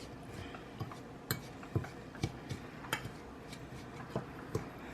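A utensil clinking and knocking against a bowl while stirring a dry spice rub with brown sugar: about a dozen irregular light taps.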